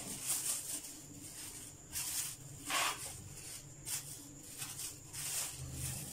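Plastic cling film crinkling and rustling in about five short bursts as it is spread by hand over a tray and a round metal patty ring.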